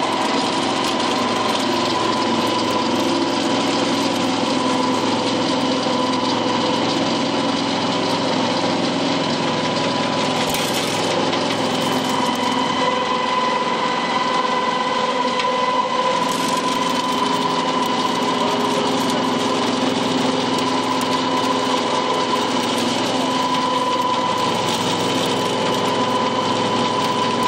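Animal feed pellet mill running at a steady speed while it presses out pellets: a continuous mechanical drone with a steady high whine over a dense rushing noise.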